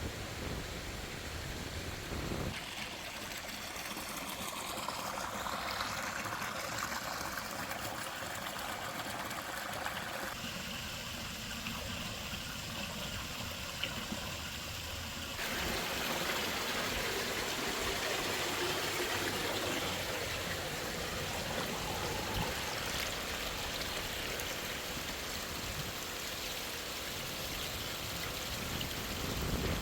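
Falling water of the Tanashita Fudo Falls, a steady rush and splash that changes abruptly in tone three times, about 2, 10 and 15 seconds in.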